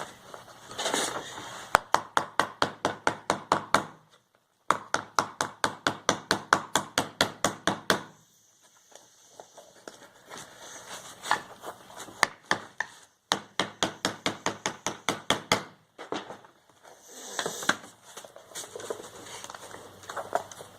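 Rapid, even hammer taps, about six a second, in several bursts of two to three seconds, setting a freshly glued leather shoe part onto the shoe, with quieter handling rustle between the bursts.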